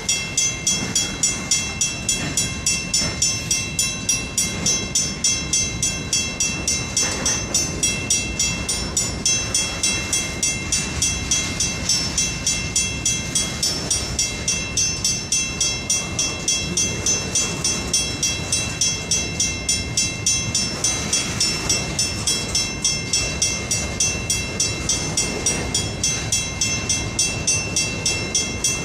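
Portland and Western freight train rolling by: a low rumble under an even, rapid ringing of about two strikes a second.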